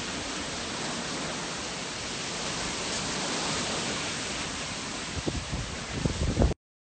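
Hurricane wind and heavy rain, a steady rushing hiss. Low gusts buffet the microphone about five seconds in. The sound cuts off abruptly about six and a half seconds in.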